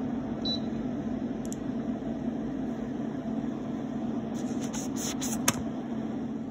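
Steady low mechanical hum of kitchen equipment, with a few light clicks late on and one sharper tick about five and a half seconds in.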